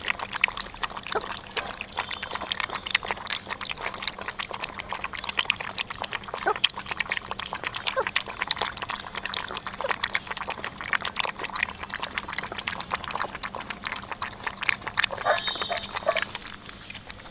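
Several dogs lapping milk, a quick continuous run of wet tongue clicks.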